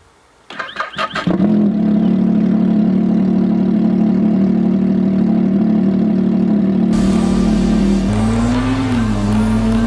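Snowmobile engine sputtering a few times and catching, then settling into a steady idle. After an abrupt change near the seven-second mark, an engine runs with its pitch rising and falling as the throttle is blipped.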